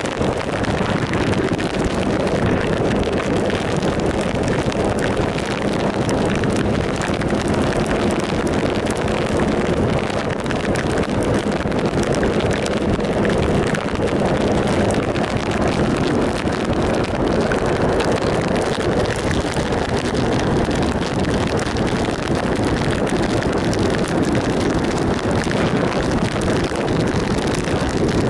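Wind rushing over the microphone on a moving motorcycle, with the 2007 Triumph Sprint ST 1050's three-cylinder engine running steadily underneath.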